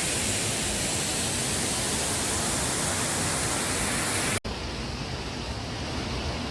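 Rushing water of a stream's waterfall: a steady, loud hiss. A little over four seconds in it cuts off abruptly to a softer, duller rush of flowing water.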